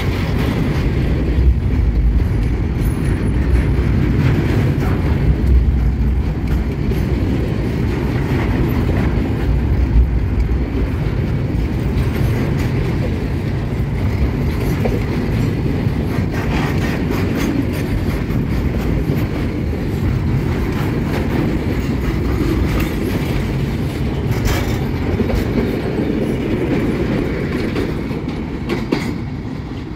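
Loaded container flatcars rolling past close by: a steady low rumble of steel wheels on the rails, with occasional clacks over the rail joints. The rumble eases slightly near the end as the last car goes by.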